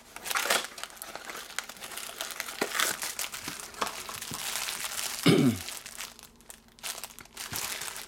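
Clear plastic bags around leather lighter pouches crinkling and rustling as they are handled, with small clicks and scrapes from the cardboard packaging. About five seconds in, a brief loud sound falls in pitch.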